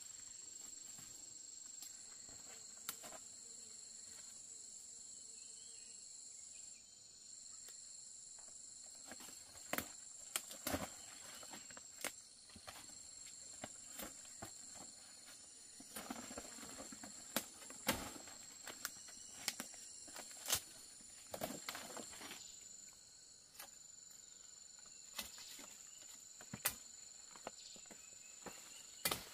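Insects, crickets or similar, trilling steadily at a high pitch, with scattered sharp clicks and crackles that come more often from about ten seconds in.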